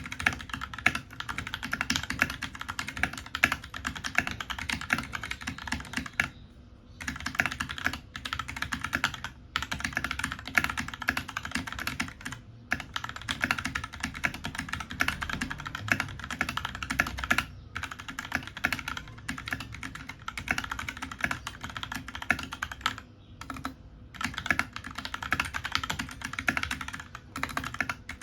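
Fast, continuous typing on a computer keyboard during a typing test: a dense run of key clicks, broken now and then by short pauses.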